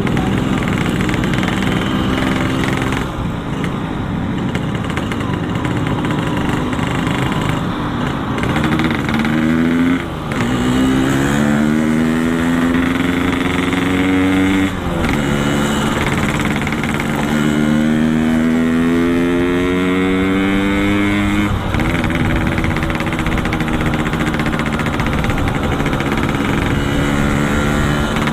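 Yamaha RX-King two-stroke single-cylinder engine running through a Boban C33 aftermarket exhaust, pulling up through the gears. Its pitch climbs and drops back at three gear changes, then holds steady near the end.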